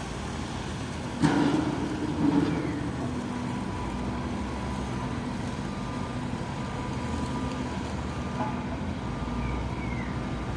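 A large diesel engine running steadily, with two loud clanks a little over a second and about two seconds in.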